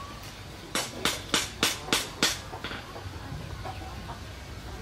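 A hen clucking: about six short, sharp clucks in quick succession, starting about a second in, then one fainter cluck.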